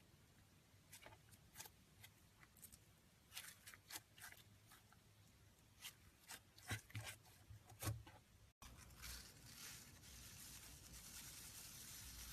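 Faint scattered clicks and crackles of slime being handled, a few louder ones near the middle, then after an abrupt cut a faint steady hiss.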